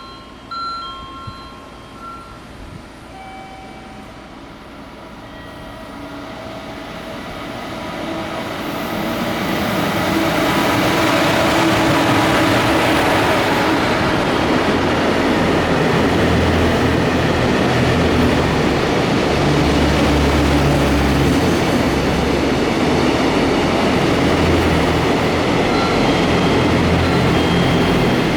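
A few electronic chime tones die away at the start. Then a train's rumble builds over several seconds and runs loud and steady from about ten seconds in.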